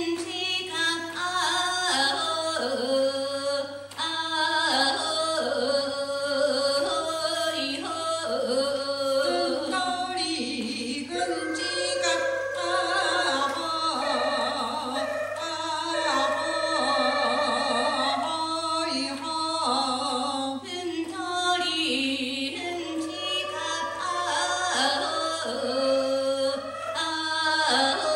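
Ainu women singing a traditional song, steady melodic singing that goes on without a break.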